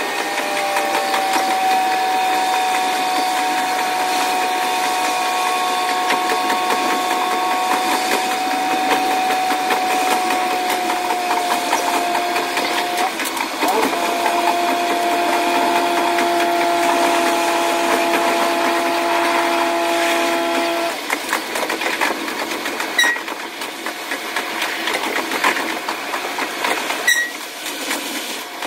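KiHa 185 diesel railcar's engine and running noise, sped up so its drone sits as high steady tones that slide slightly downward. The tones break off briefly about halfway, stop about three-quarters through, and are followed by a couple of short clicks.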